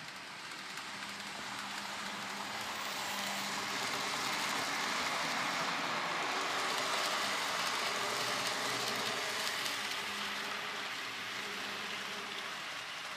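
N gauge model train running along the track: a steady whirring hiss of motor and wheels on rail that grows louder over the first several seconds and eases off again towards the end.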